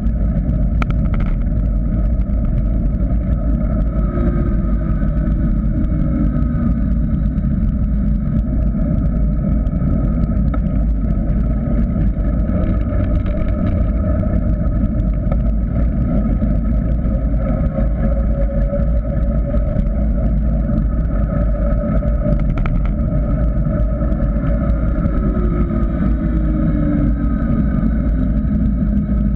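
Steady wind rumble and tyre noise from a mountain bike descending fast on an asphalt road, picked up by a GoPro Hero 3 camera. A fainter hum drops in pitch a few seconds in and again near the end.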